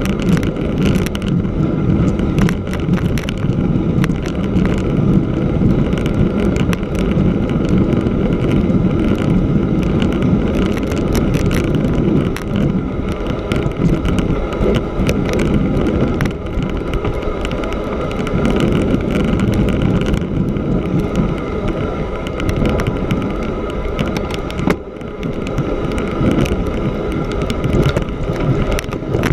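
Mountain bike with a knobby tyre rolling over snow-covered lake ice: a steady rumble of tyre on snow, with frequent small clicks and rattles and wind on the microphone.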